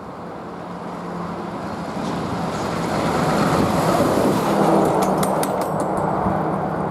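Heavy flatbed lorry carrying a loader crane driving past close by, its engine and tyre noise swelling to a peak about four seconds in and easing off, with a few sharp clanks from the truck as it goes by.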